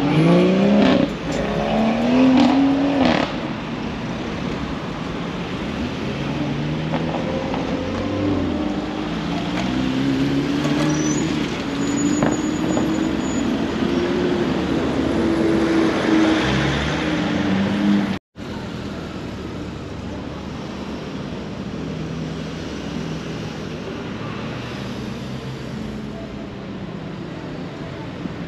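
Road traffic: car and bus engines passing and pulling away, their engine notes rising in pitch, loudest in the first few seconds. The sound breaks off abruptly about two-thirds of the way through, then continues as a steadier, quieter traffic rumble.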